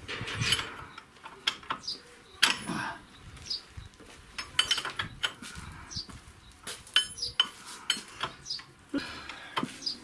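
Metal wrenches clinking and knocking irregularly against suspension nuts and fittings while the control-arm bolts are tightened, about one or two sharp clinks a second. Birds chirp now and then behind it.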